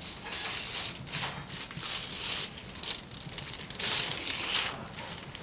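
Gift-wrapping paper being ripped and crumpled off a present, in several rough tearing bursts, the longest about four seconds in.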